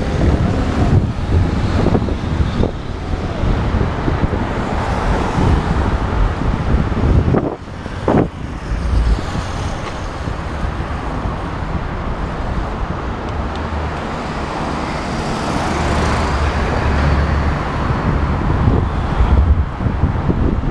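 Road traffic noise heard from a moving bicycle, with low wind rumble on the microphone. A couple of sharp knocks come about eight seconds in, and the traffic swells briefly later on as a vehicle passes.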